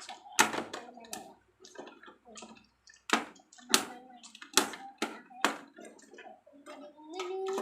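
Sharp clicks and knocks of hard plastic toy pieces being handled and fitted together, some eight or nine strikes spaced irregularly, with voices talking at a low level and most clearly near the end.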